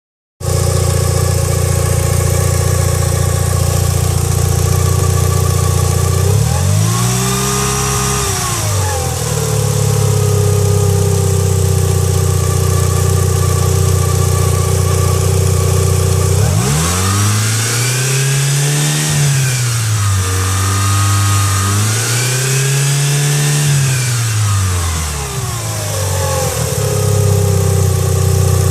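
Mitsubishi Lancer Evolution IX's turbocharged 2.0-litre four-cylinder engine idling, revved up briefly once, then revved twice more in quick succession before settling back to idle. The owner hears strange noises from it since a timing belt change.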